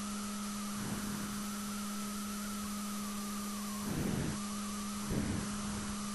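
A steady low hum with a faint, slightly wavering higher whine over a constant hiss, with two brief soft sounds about four and five seconds in.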